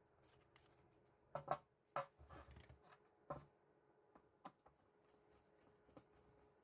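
Near silence with a few faint, scattered clicks and light knocks.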